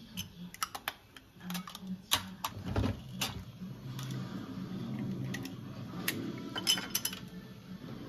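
Clicks and light clinks of a plastic garlic grater with a stainless steel grating plate being handled as its cup is fitted and slid on the plate, with a duller knock about three seconds in.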